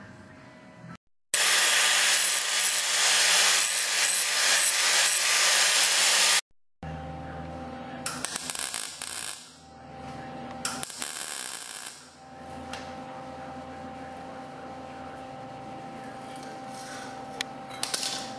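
Shop power tools heard in short edited clips. One runs loud and steady for about five seconds. After a cut, two bursts of about a second and a half each come over a steady hum.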